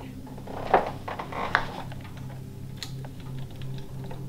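A few light clicks and soft knocks over a steady low hum.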